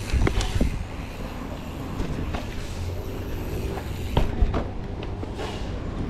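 Mountain bike riding over concrete and pavement: wind buffeting the camera's microphone and tyres rumbling, with a few sharp knocks and rattles from the bike over bumps, twice near the start and loudest about four seconds in.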